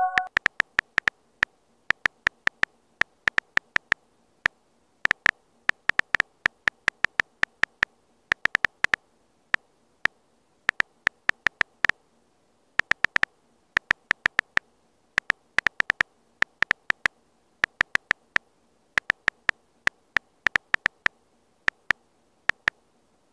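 Key-press clicks from a phone's on-screen keyboard as a message is typed, in irregular runs of quick taps with short pauses between words.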